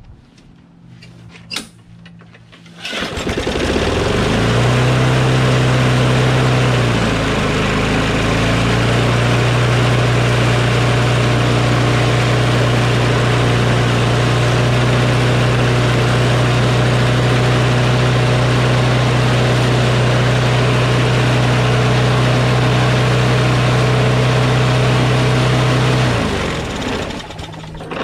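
Briggs & Stratton Quantum single-cylinder engine on a Craftsman push mower starting about three seconds in and running steadily at very high speed for over twenty seconds, then shutting off and winding down near the end. The RPM is very high, which the owner puts down to too much tension on the governor spring from the speed-adjusting tab being pulled out too far.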